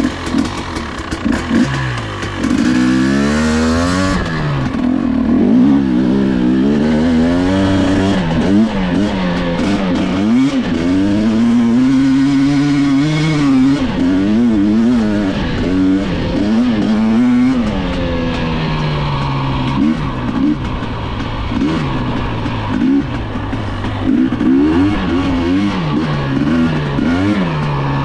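Husqvarna 250 two-stroke enduro motorcycle engine being ridden off-road, its pitch climbing and dropping again and again as the throttle is opened and closed. It runs low at first, then picks up sharply about two and a half seconds in as the bike pulls away.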